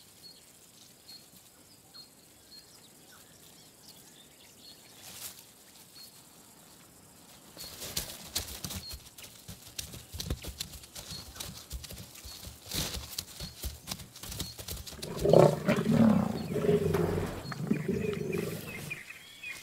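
Lions attacking a young giraffe: after several quiet seconds come scattered rustling and scuffling, then loud, low lion growls from about fifteen seconds in until just before the end.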